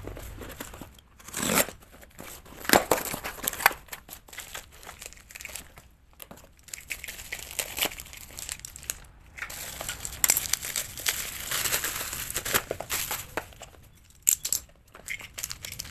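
Plastic packaging crinkling and tearing as it is handled and pulled open, with sharp clicks and taps. A longer, denser stretch of crinkling comes about two-thirds of the way through.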